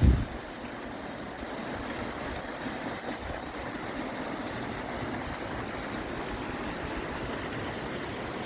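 Mountain stream rushing steadily, an even hiss of running water. A brief low rumble cuts off in the first moment.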